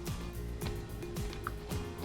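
Background music with a regular beat and falling bass sweeps.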